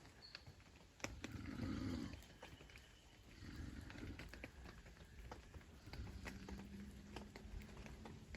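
A person snoring: three rasping, guttural snores a couple of seconds apart, the last drawn out with a steady humming tone. Light rain ticks faintly throughout.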